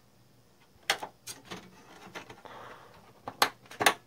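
A few sharp plastic clicks as a RAM stick is pushed into a motherboard memory slot, with the loudest two snapping close together near the end.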